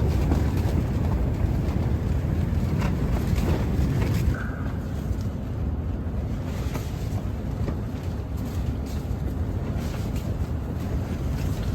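Strong gusting wind, rumbling heavily on the microphone, easing slightly about four seconds in, with a few faint light clicks.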